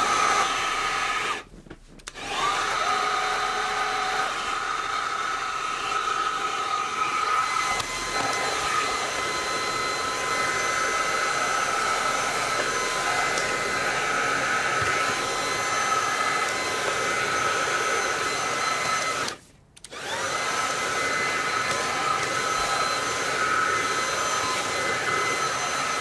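Xiaomi G11 cordless stick vacuum running with a steady motor whine, cutting out briefly twice, about two seconds in and again about twenty seconds in, and starting up again each time.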